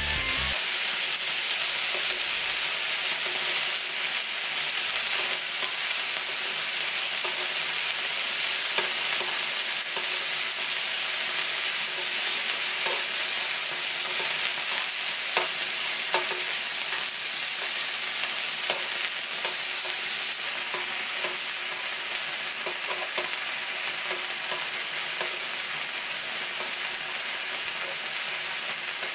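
Chicken heart skewers sizzling in oil on an electric griddle pan: a steady frying hiss with scattered small ticks and pops.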